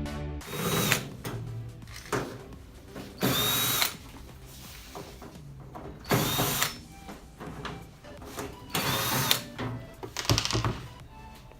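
Cordless power screwdriver or drill spinning in about five short runs a couple of seconds apart, its whine dropping as it stops each time, typical of backing out the screws of a microwave oven's outer cover.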